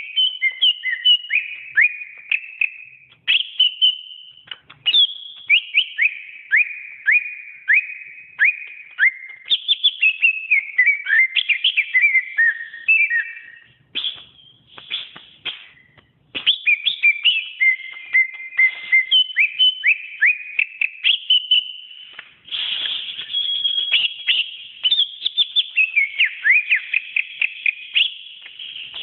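Green leafbird (cucak ijo) singing a long, varied song of quick whistled notes, many of them falling slurs, with a couple of short breaks about halfway through.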